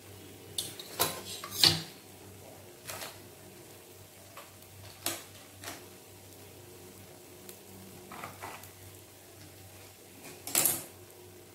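Scattered clinks and knocks of kitchen utensils and pans, with a louder clatter about a second and a half in and another near the end, over a faint steady hum.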